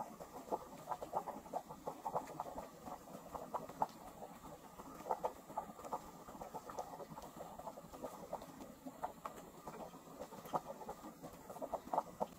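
Beef bone broth boiling hard in an open stainless steel stockpot: dense, irregular bubbling and popping.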